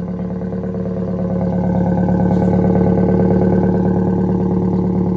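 BMW E36 318is four-cylinder engine running through an exhaust section taken from a 316i and adapted to the 318is manifolds, shortly after a start. It grows louder over the first couple of seconds, then holds steady.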